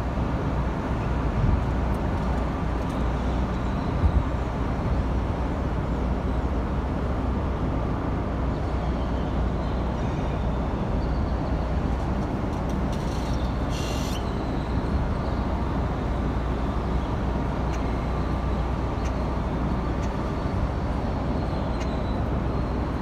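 Steady low rumble of a diesel locomotive's engine running while switching freight cars, with a short high hiss about thirteen seconds in.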